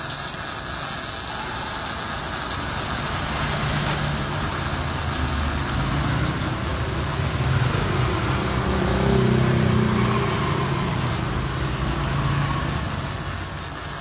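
MIG welder arc crackling and buzzing steadily, with a low hum underneath that grows louder about eight to ten seconds in.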